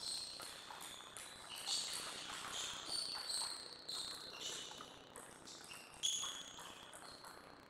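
Table tennis ball clicking off the rackets and table in rallies, the hits spaced irregularly, each with a short high ring.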